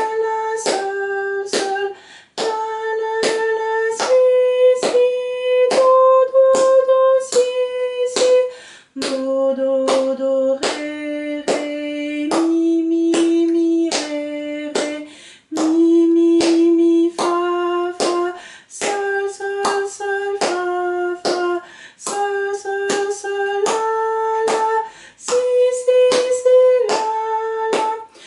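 A woman singing a C-major scale exercise note by note, with repeated notes and triplet figures, taken an octave down for vocal comfort, while clapping a steady beat about every 0.7 seconds.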